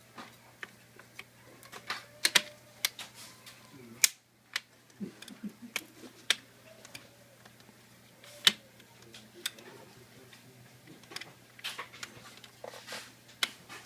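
Irregular sharp clicks and taps of small plastic clips and hand tools being worked while a laptop is taken apart.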